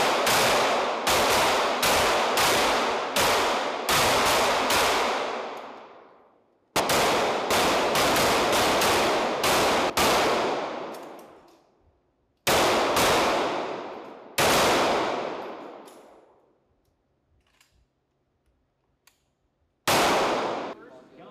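M18 9 mm pistols firing at an indoor range: a rapid string of about ten shots, then a second string of about seven, each roughly half a second apart, followed by two spaced single shots and one last shot near the end. Every shot leaves a long echoing tail off the range walls.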